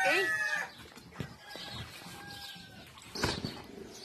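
A rooster crowing, its long held call ending about half a second in. Fainter farmyard animal sounds follow, with a short sudden noise a little after three seconds.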